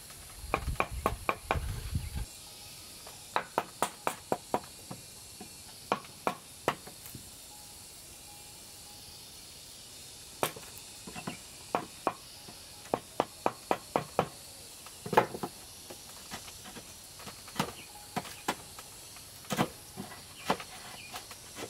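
Irregular sharp knocks and taps of hand tools on wood, some in quick runs of several strikes, over a steady high drone of insects.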